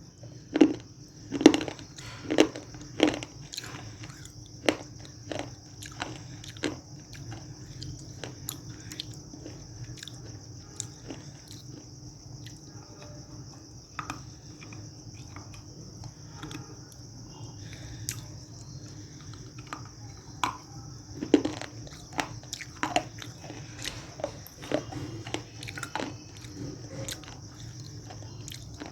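Close-up biting and chewing of hard, dark edible clay chips: sharp dry crunches, loudest in a run of bites just after the start and again about two-thirds of the way through, with quieter chewing in between. A steady hum and a faint high whine run underneath.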